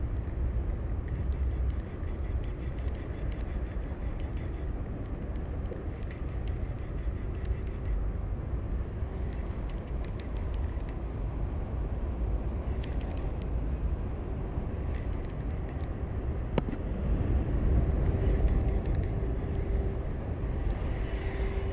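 Wind rumbling on the microphone, with faint bursts of high-pitched ticking every few seconds.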